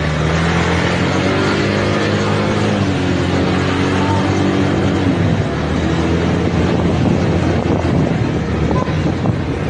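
A vehicle engine running while driving, with road and wind noise; its pitch climbs gradually and drops back about five seconds in.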